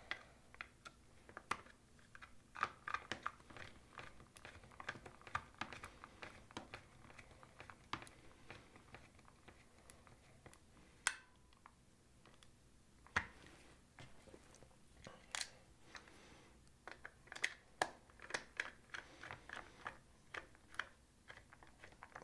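Hand screwdriver turning small screws into the plastic case of a Uni-T UT353 sound meter, with hands handling the plastic housing: scattered faint clicks and scrapes at irregular intervals.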